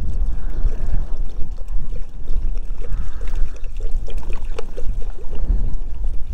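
Loud, steady rush and rumble of wind buffeting the microphone on a motorcycle riding at road speed.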